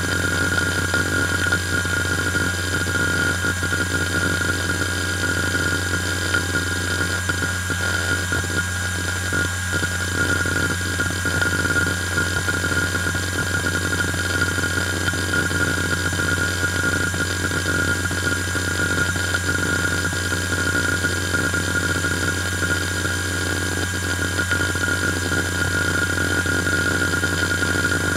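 IBM Travelstar 25GS five-platter 2.5-inch hard drive spinning, with a steady high whine over a low hum, and irregular head-seek chatter as the drive is read during the Windows XP boot.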